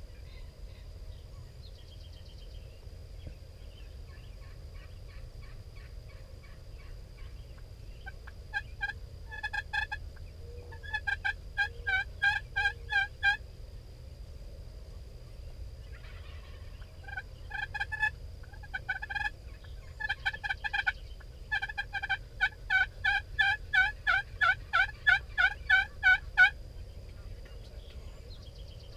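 Turkey yelping: runs of short, repeated notes about three a second, two brief series a third of the way in, then a longer series in the second half that grows louder.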